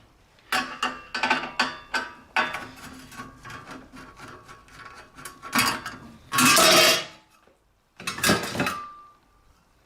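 Metal clicks and clanks as the band sealer's cover panels are handled and taken off, with short ringing after some knocks. A loud clatter comes about six and a half seconds in, and more knocks follow near the end.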